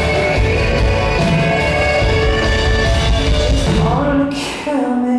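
Live rock band playing an instrumental passage with no vocals: electric guitar over drums and bass. About four seconds in, the low end and drums drop away briefly under a held guitar note, then the full band comes back in.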